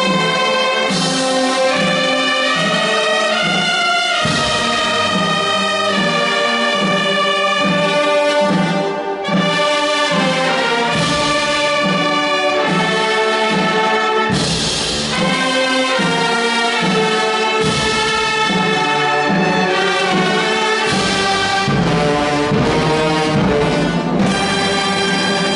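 Wind band of flutes, clarinets, saxophones and brass playing, with sustained melody over a steady beat in the low brass, about two pulses a second.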